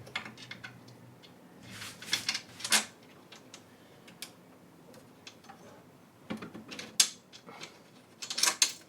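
Handling noise from assembling a 3D printer: scattered clicks and knocks of parts being moved and fitted, with a cluster of quick knocks near the end.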